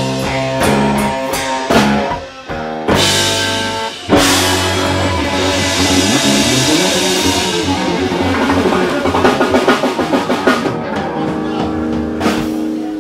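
A live blues-rock band playing electric guitar and drums, with loud drum and cymbal hits about three and four seconds in and a cymbal wash after them.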